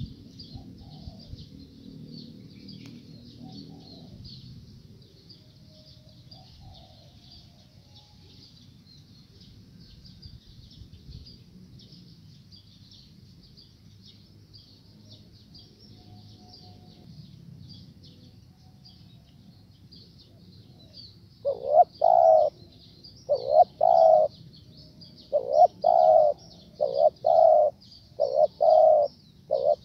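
Spotted dove cooing: a string of about ten coos in short groups, starting about two-thirds of the way in, over a steady high chirring.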